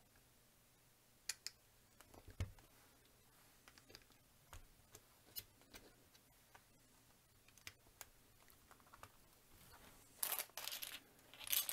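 Small plastic building bricks clicking and knocking as they are picked through by hand: scattered single clicks at irregular intervals. About ten seconds in, a plastic parts bag starts crinkling.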